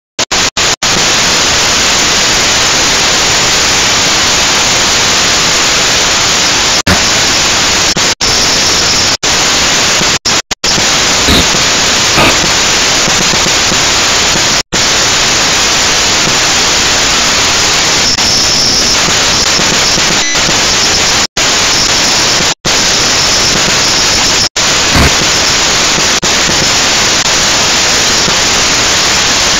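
Loud, steady static hiss from a toy quadcopter's onboard camera recording, broken a dozen or so times by brief dropouts to silence.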